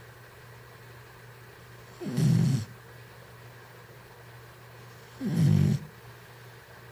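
A sleeping pet snoring: two snores about three seconds apart, each about half a second long and dropping in pitch.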